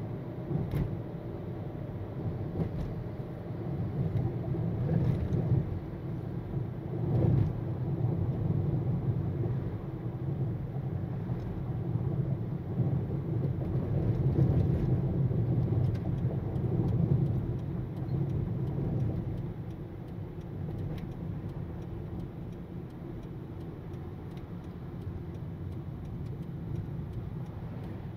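A car driving: a steady rumble of engine and road noise, louder for a stretch in the middle and easing off after about twenty seconds.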